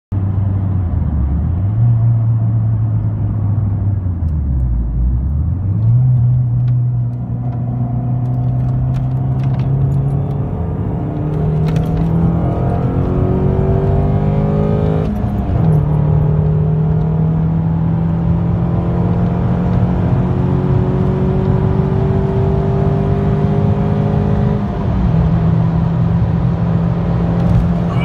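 MINI's engine and exhaust heard from inside the cabin as the car accelerates through the gears. The pitch dips low a few seconds in, then climbs steadily, dropping sharply at upshifts about halfway through and again near the end.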